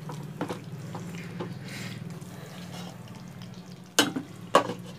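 A spatula stirring thick chicken masala in a pan on the stove, with small scraping clicks and a light sizzle. Two sharp knocks come about four seconds in, the spatula striking the pan.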